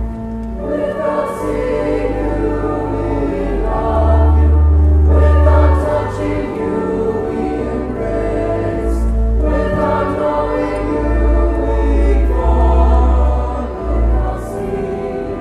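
A school choir singing a sacred piece in parts, accompanied by a pipe organ, whose deep sustained bass notes change under the held chords.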